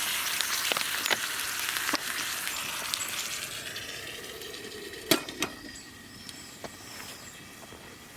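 Food sizzling in a hot pan, the sizzle fading away over the seconds, with a few sharp clicks a little past halfway.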